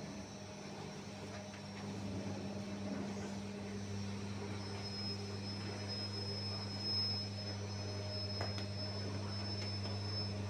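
Steady low electric hum of bakery machinery, growing louder about four seconds in, where a thin high whine joins it; a couple of light clicks sound near the end.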